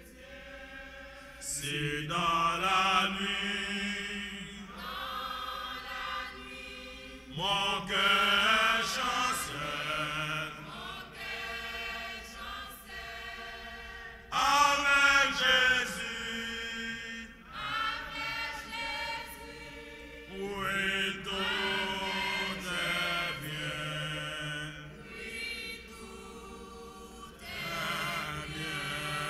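A church choir of women's voices singing together in long phrases, each a few seconds long, with short breaks for breath between them.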